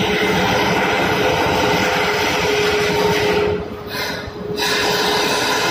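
Ship's steering gear machinery running with a loud, steady mechanical noise and a steady hum. It turns briefly quieter and duller for about a second past the middle.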